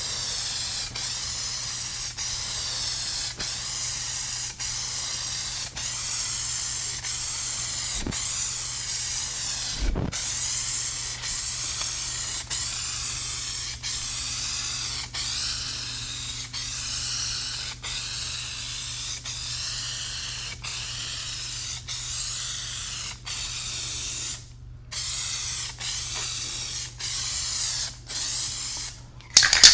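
Aerosol spray paint can hissing in long continuous passes, broken by a few brief stops where the nozzle is let go, over a low steady hum.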